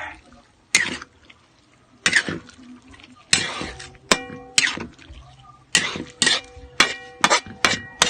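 Metal utensil clinking against a cooking pot: a dozen or so sharp, irregular strikes, several ringing briefly, starting about a second in and coming faster toward the end.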